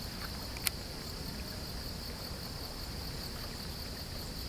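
Crickets trilling in a steady, high-pitched chorus, with a single sharp click a little under a second in.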